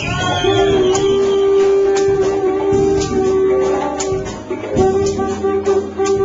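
A conch shell blown in long, steady held notes, with a short break for breath about four and a half seconds in, over a live band with a light percussion tick about once a second.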